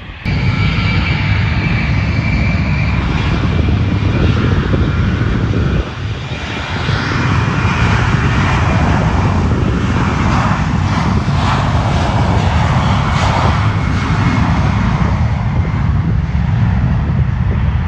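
Jet airliner taking off: its engines run at take-off power, a loud, steady rushing noise. In the first few seconds a thin high whine sits on top of it.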